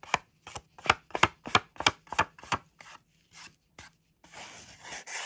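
Small ink pad dabbed against the edges of a square cardboard die-cut: a run of sharp taps, about three a second, that grows fainter after about two and a half seconds, then a short rubbing swipe near the end.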